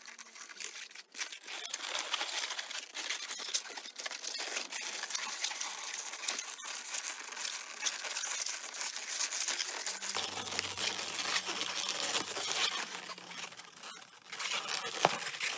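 Inflated 260Q latex modelling balloons rubbing against each other and against the hands as they are twisted and pressed together, a dense run of small crackles and rubs.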